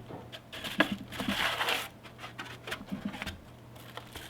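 Cardboard box and packaging being handled and opened: scattered light knocks and clicks, with a short rustle of packing material about a second in.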